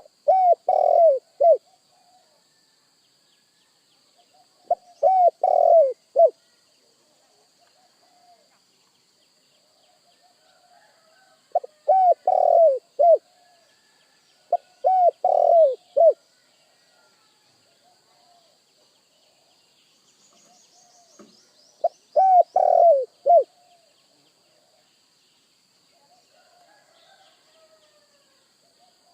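Spotted dove cooing: five phrases of several deep coo notes each, a few seconds apart. Faint chirps from other small birds and a steady faint high tone run underneath.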